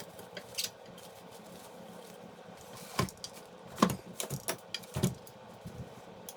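Scattered clinks and clicks of small metal parts and hand tools being handled, with a few louder knocks about three, four and five seconds in.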